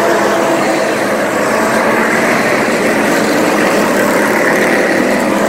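A field of dirt-track stock cars racing, many engines running together in a loud, steady drone.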